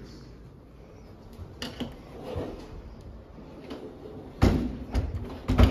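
Cupboard doors and drawers being opened and shut: a couple of light knocks, then three louder bangs close together near the end.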